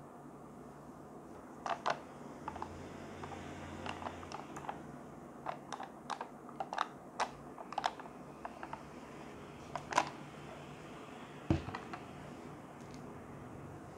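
Scattered light clicks and taps of hands handling a plastic drink cup and silicone straws, with a deeper thump about eleven and a half seconds in as the cup is set down on the table.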